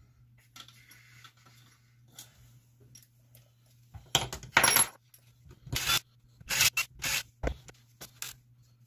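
Small metal parts and tools being handled at a workbench: a faint rustle at first, then from about four seconds in a series of short scraping and clinking noises.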